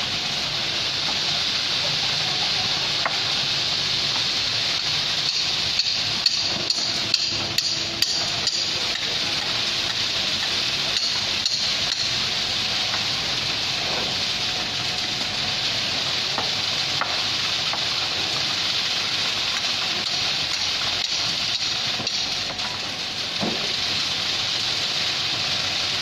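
Concrete pour on a foundation slab: a steady hiss-like noise, with a quick run of about six sharp knocks between six and eight seconds in.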